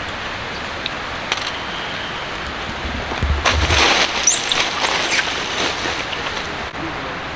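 Steady rushing outdoor background noise, with a burst of rustling about three and a half seconds in and two short, high, sliding chirps during it.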